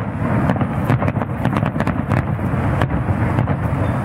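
Aerial fireworks: a rapid, irregular string of sharp pops and crackles over a steady low rumble.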